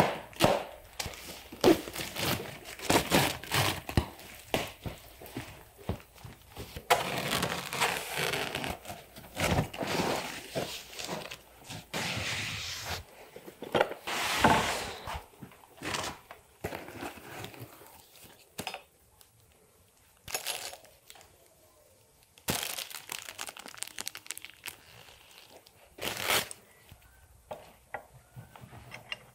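Cardboard shipping box and its packing being handled and pulled apart: cardboard and packing material crinkling and tearing, with knocks and thuds as pieces are lifted out. The handling comes in bursts, with a quieter spell about two-thirds of the way through.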